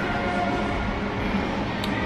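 Background music with held, steady notes.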